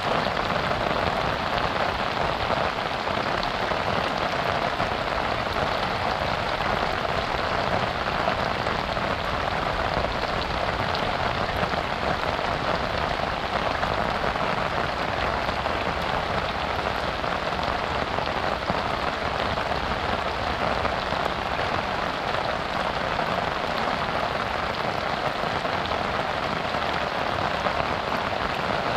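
Heavy rain falling steadily: a dense, even hiss of countless drops that neither builds nor eases.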